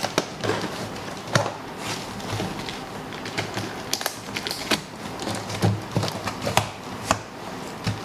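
A cardboard shipping carton being cut and opened with a knife: irregular clicks, crackles and scrapes of blade, packing tape and cardboard.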